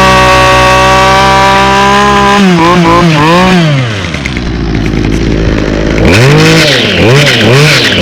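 Two-stroke string trimmer held at high revs, then blipped up and down a few times, dropping to idle about four seconds in and revved in quick bursts again near the end. The owner puts the way it sounds down to a bad trimmer head.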